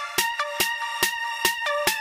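Electronic background music with a steady beat, a little over two beats a second, under a short repeating synth melody.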